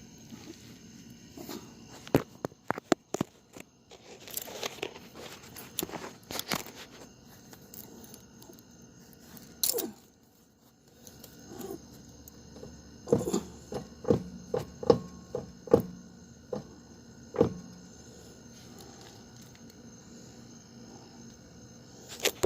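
Irregular sharp clicks and knocks in a few clusters as a truck's front wheel is rocked by hand to check for play, the lower ball joint being the one the owner judges worn.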